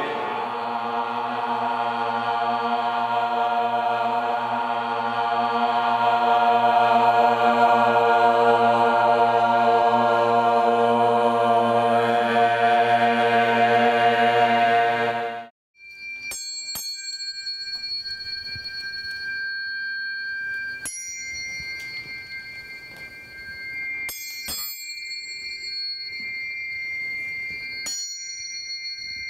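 Voices holding a sustained chanted chord for about fifteen seconds, which cuts off abruptly. Then tuning forks are struck several times, each strike a small click followed by a long, pure high ringing tone.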